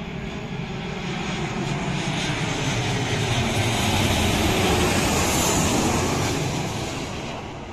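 Boeing 737 jet airliner on final approach with gear down, passing close: a loud jet engine rush and rumble that swells to its peak about five seconds in, with a faint high whine, then fades as it goes past.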